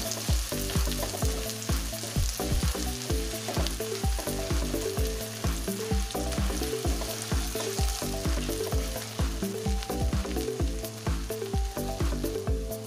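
Sliced onions sizzling in hot mustard oil in a non-stick frying pan, a steady hiss of frying, stirred continuously with a spatula. Background music plays underneath.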